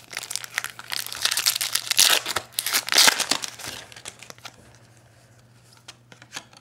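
Foil wrapper of a trading-card pack being torn open and crinkled, loudest around two and three seconds in, then dying down to a few light rustles.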